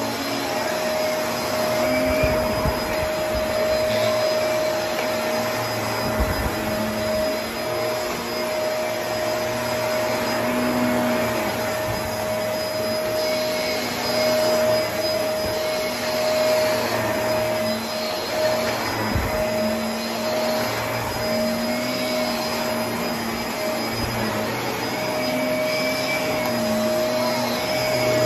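Bagless upright vacuum cleaner running steadily on a thick area rug, its motor giving a constant whine over the rush of suction. The pitch of a lower hum wavers as it is pushed back and forth, with a few soft knocks along the way.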